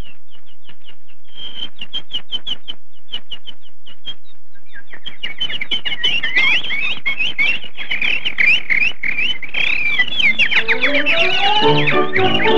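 Cartoon soundtrack bird chirping: first a quick run of short high chirps, then a dense chorus of many birds twittering at once. Music rises in underneath near the end.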